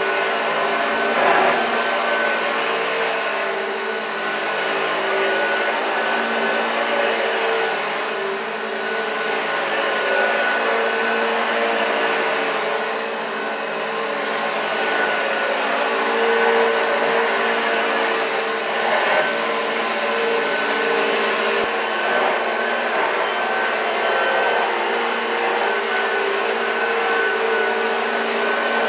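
1986 Hoover Junior U1206 upright vacuum cleaner running steadily: a motor hum with a thin high whine over the rush of air, its loudness swelling and dipping slightly as it is worked across the floor.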